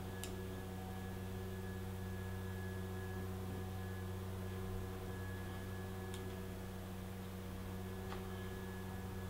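Steady electrical mains hum, with three faint sharp clicks: one near the start, one about six seconds in and one about eight seconds in.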